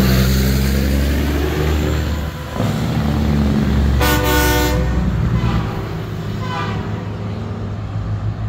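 Heavy trucks rumbling past at low speed. About four seconds in, a loud air horn blasts for under a second, and fainter horn toots follow a second or two later.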